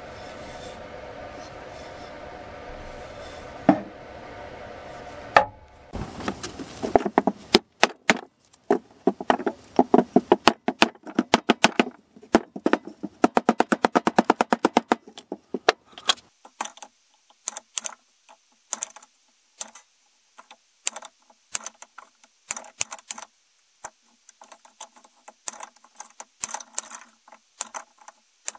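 Restored Brades Criterion hatchet chopping small pieces of wood on a chopping block: a long run of quick, sharp strikes, very rapid for several seconds, then sparser, lighter knocks and clicks as the wood splits and pieces are handled. A steady hum fills the first few seconds before the chopping starts.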